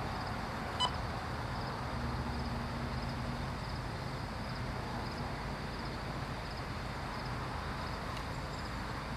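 Distant diesel freight locomotives rumbling as they climb a grade, heard as a steady low hum under an even outdoor hiss. A single short click comes just under a second in.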